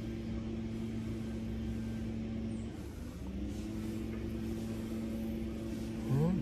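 A steady low engine hum, like a vehicle idling nearby. Its pitch dips and recovers about three seconds in. Near the end comes a short rising call, the loudest sound.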